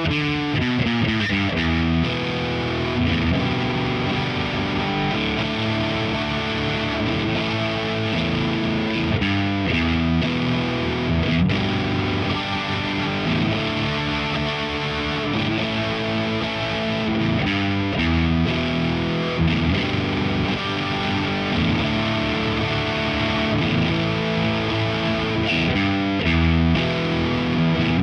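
Distorted electric guitar: a G&L USA SC-3 Deluxe with stock MFD single-coil pickups, played through a Diezel VH4 head into a Marshall 4x12 cabinet. It plays held notes mixed with several quick runs.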